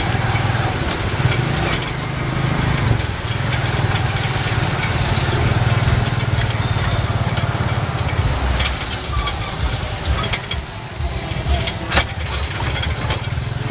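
Tuk tuk's motorcycle engine running steadily while riding through city traffic, with road and traffic noise. A few sharp knocks in the second half.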